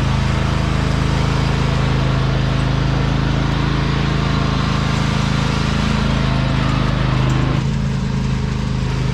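Riding lawn mower engine running steadily under way while towing a mini train of trailer cars, with a low steady hum under a rough, noisy top. About seven and a half seconds in, the upper noise drops off and the hum carries on.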